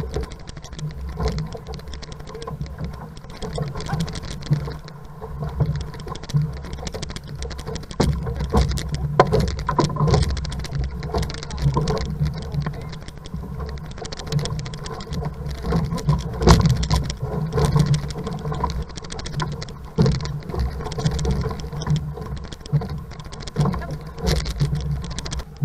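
Water splashing and rushing along an outrigger racing canoe's hull as the crew paddles hard, over a steady low rumble, with irregular sharp knocks.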